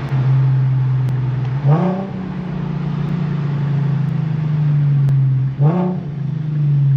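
Infiniti Q50 with a muffler-delete exhaust droning steadily under way; the engine note rises about two seconds in, holds, then drops back and briefly rises again near the end.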